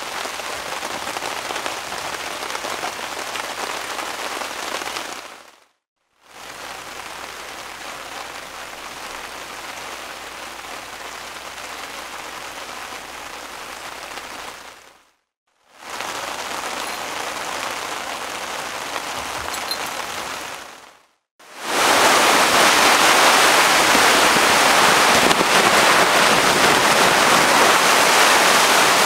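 Steady rain falling on a camp tarp, heard from underneath it, in four takes with brief silent gaps between them; the last take, from about 21 seconds in, is much louder.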